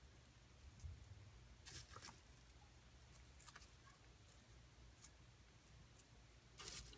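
Near silence with a few faint, short ticks and rustles of dried rose buds and petals being set into the soft top of a soap loaf.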